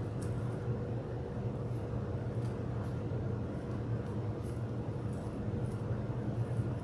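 Steady low background hum, with faint soft crinkles of plastic wrap as fingers press and smear paint through it on a canvas.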